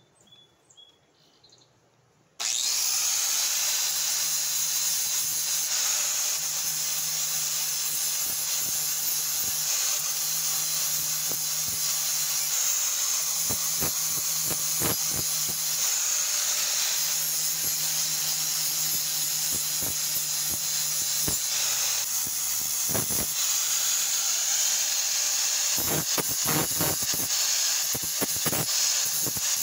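Electric angle grinder with a worn 40-grit flap disc grinding a steel axe head, starting suddenly about two seconds in and running steadily. The disc's contact with the steel adds irregular crackling scrapes, heaviest near the end.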